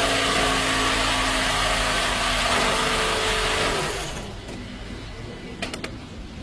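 Car engine running with a loud whirring hiss, then switched off about four seconds in and winding down; a couple of clicks follow near the end.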